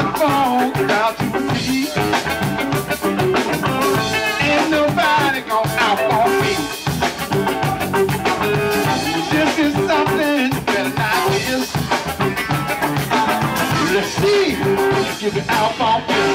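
Live funk band playing a groove on drum kit, electric bass and electric guitar.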